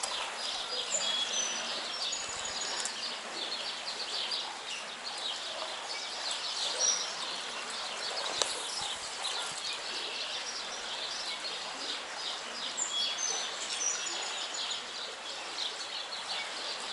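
Small birds chirping and twittering over a steady rush of stream water, with one sharp click about halfway through.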